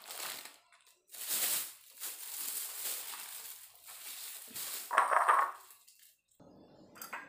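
Plastic bag crinkling and rustling as it is handled and pressed around a head of napa cabbage, in several bursts, the loudest about five seconds in.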